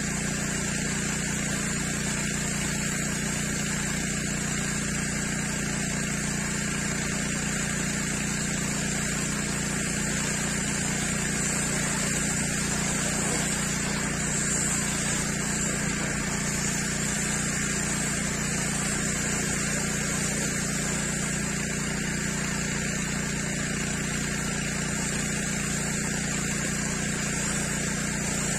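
Pressure washer running steadily, its motor humming under the hiss of the water jet blasting the concrete paving.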